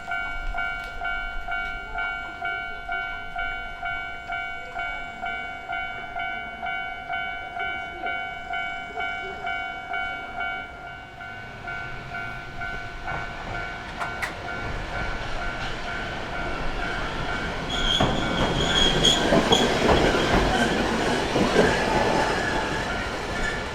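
Japanese level-crossing warning bell ringing in an even, repeating pattern. From about twelve seconds in, a Randen tram approaches and runs over the crossing, loudest near the end, with a brief high wheel squeal while the bell keeps ringing.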